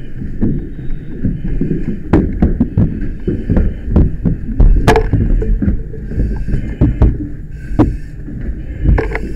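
Firefighter turnout gear rubbing and bumping against the camera's microphone: a muffled low rumbling broken by irregular sharp knocks, the loudest knock about five seconds in.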